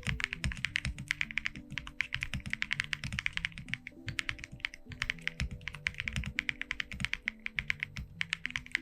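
Fast, continuous typing on an Akko 5075B mechanical keyboard with Akko Cream Yellow linear switches: a quick, even stream of keystrokes, several a second. Soft background music plays underneath.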